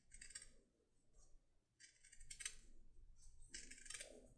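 Red-handled shears snipping through a half-inch milled vegetable-tanned leather lace, tapering its end. The snips are faint, a few short cuts spaced a second or more apart.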